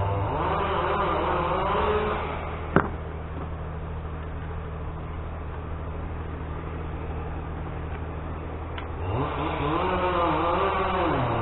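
Chainsaws revving up and down over a steady lower engine hum. A sharp click comes nearly three seconds in, after which the revving drops away. It picks up again about nine seconds in.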